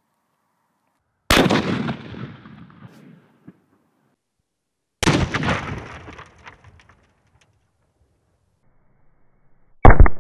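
Three loud rifle shots from a .30-06 firing armor-piercing rounds at a ceramic body-armor plate, about a second in, about five seconds in and near the end. The first two each ring out and fade over a second or two.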